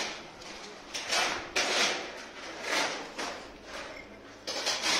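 Polished black granite strip scraping and sliding against gritty brick and stone in about six short, rasping strokes as it is shifted into place.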